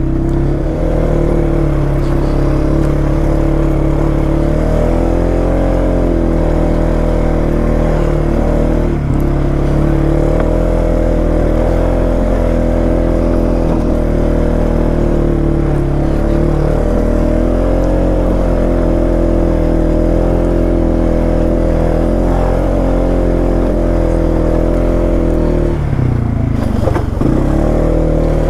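Polaris Sportsman 570 ATV's single-cylinder engine running at a fairly steady speed while riding, easing off briefly near the end and picking back up.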